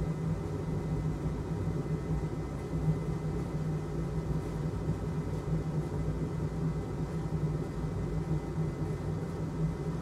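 Steady low machine hum that does not change, with no clicks or taps.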